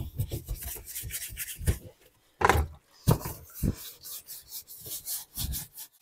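Scrubbing inside the wet plastic tub of a washing machine, a rough rubbing in irregular strokes with a few short pauses.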